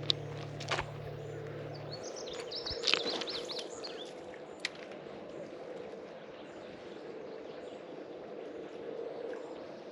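Steady rush of a shallow creek, with a low hum that stops about two seconds in, a few sharp clicks, and a short run of bird chirps about three seconds in.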